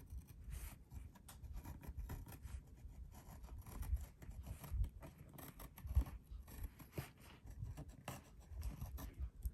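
Gyro-Cut swivel-blade craft knife cutting through paper, a faint run of small scratching strokes and ticks with a few soft knocks.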